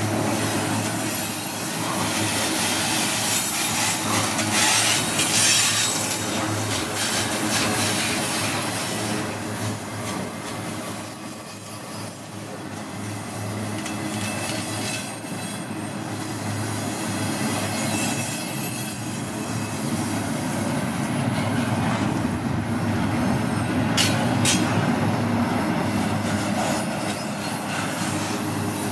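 Double-stack intermodal container train rolling past at trackside: the steady rolling noise of its well cars' wheels on the rails, with wheel squeal now and then and a sharp high squeal about 24 seconds in. The noise eases briefly about halfway through.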